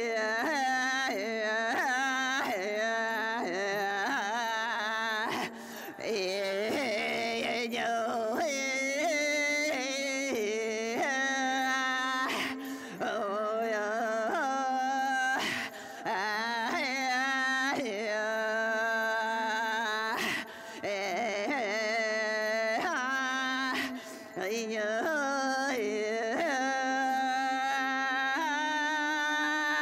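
Women's voices singing an archaic Finnish forest song without a beat: an ornamented melody with pitch glides and trills, sung in phrases of a few seconds with short breaks, over a steady held low note.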